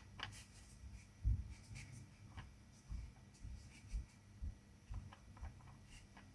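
Faint scratchy brush strokes and light taps on a watercolour artboard, with a few soft knocks.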